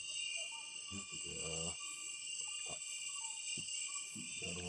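Insect chorus, a steady high-pitched trilling drone in several bands, with a short low murmur about a second and a half in and a couple of faint knocks.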